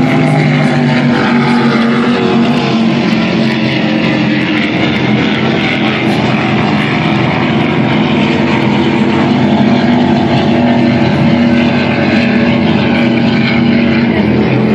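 Racing powerboat engines running at speed: a loud, steady drone.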